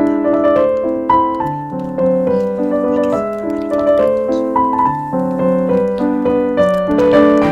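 Background piano music with notes changing in a steady rhythm.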